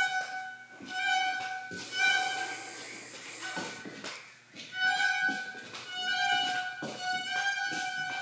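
A violin playing a series of held high notes, most at nearly the same pitch, with short breaks between them.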